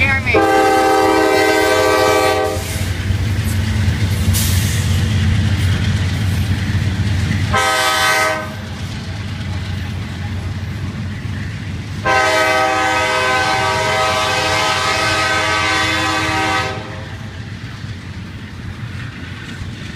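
Diesel locomotives of a CSX freight train pass with a deep engine rumble while the lead unit's air horn sounds three blasts, long, short, long, for a grade crossing. About eight seconds in the rumble drops away to the quieter running noise and wheel clatter of the double-stack container cars.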